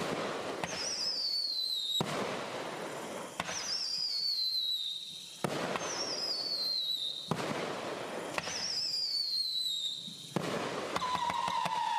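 Whistling fireworks: about five shrill whistles go off one after another, each starting with a sharp crack and gliding down in pitch. The last one, near the end, is noticeably lower.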